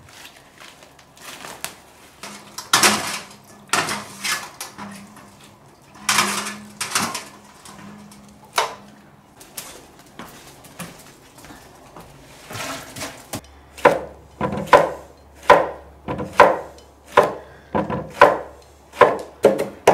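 A kitchen cleaver chopping on a thick wooden board. Scattered knocks and handling sounds come first, then a run of steady chopping strokes, about one and a half a second, in the second half.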